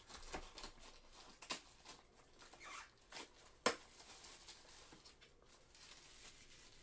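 Plastic shrink-wrap being torn and peeled off a cardboard trading-card box: faint crinkling and scratching, with a sharp click just past halfway.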